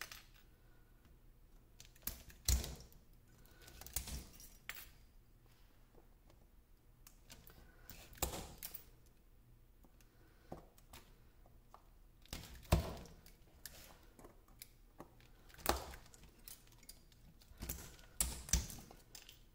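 Pliers tearing spot-welded nickel strips off the 18650 cells of an e-bike battery pack: sharp metallic snaps and clicks at irregular intervals, several seconds apart, with quiet between.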